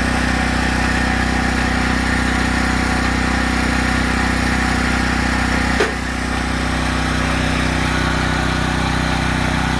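A motor running steadily with an even hum, with one sharp click near the six-second mark after which it runs slightly quieter.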